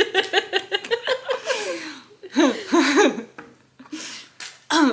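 Laughter, starting as a quick run of rapid pulses that fades out, followed by a few longer, drawn-out laughing sounds and a short burst near the end.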